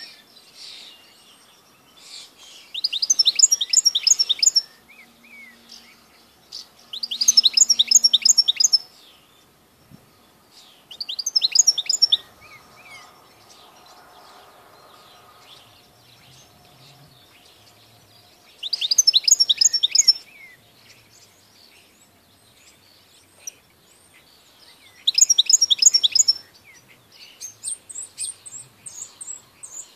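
European goldfinch singing: about five short bursts of fast, rapidly repeated high notes, each a second or two long, separated by pauses of a few seconds, then a thinner, higher twitter near the end.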